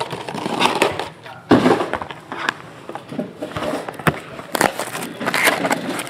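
Shrink-wrap plastic being torn off a trading card box and crinkling in the hands, with sharp knocks of the cardboard box being handled.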